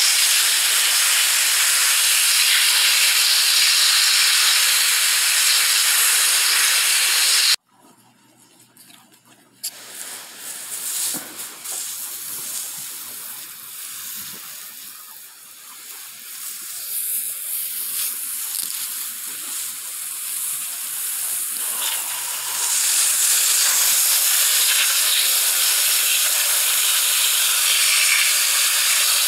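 Garden hose spray nozzle hissing as water sprays onto plants. The spray cuts off suddenly about a quarter of the way in, leaving only fainter noise for a while, and comes back at full strength about three quarters of the way through.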